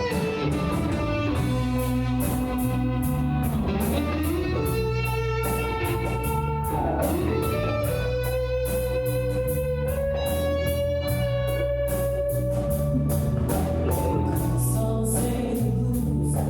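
Rock band playing live: a lead guitar line with held and bending notes over bass and a steady drum beat.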